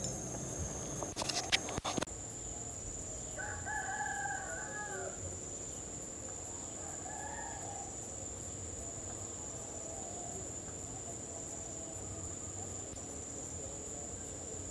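A rooster crowing, one call about three and a half seconds in and a fainter one a few seconds later, over a steady high-pitched insect trill. A few sharp clicks and knocks come about a second in.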